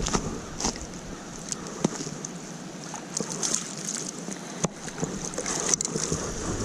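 Water splashing and sloshing as a hooked trout is worked toward the landing net, with a few sharp knocks. Wind rumbles on the microphone for the first couple of seconds.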